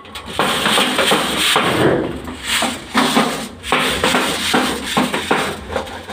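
Coarse gravel rattling and grinding inside a stack of large steel test sieves that is being shaken by hand to grade the aggregate by size. The noise comes in surges about twice a second with each rocking stroke of the stack.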